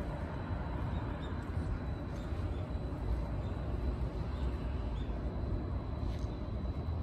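Small birds giving faint, short, high chirps every second or so over a steady low outdoor rumble.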